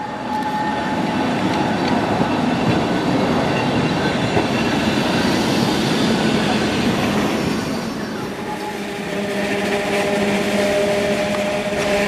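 Vintage electric tram passing close by: the steady rolling noise and rattle of its wheels on the rails. From about eight seconds in, a steady whine of tram traction motors with a few held tones comes over the rolling noise.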